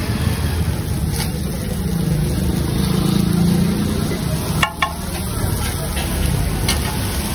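Steady low rumble under a few sharp metal clinks of a steel spatula on a flat griddle where chowmein vegetables are being cooked. The loudest clink comes about two-thirds through, with fainter ones about a second in and near the end.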